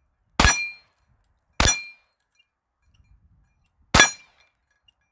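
Three shots from a pistol-caliber carbine, the first just after the start, the next about a second later and the last about two seconds after that. Each shot is followed by a brief metallic ring from the steel target plates.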